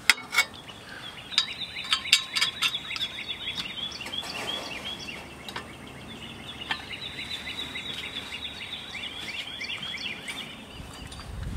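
A bird singing long runs of quick falling chirps, with a few sharp clicks and taps in the first seconds from hand work on the engine's fan and pulley.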